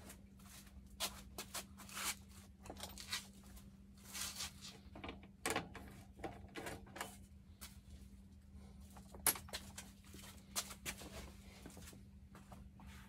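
Irregular handling noises: scattered clicks, taps and short scrapes at no steady rhythm, the sharpest about nine seconds in, over a steady low hum.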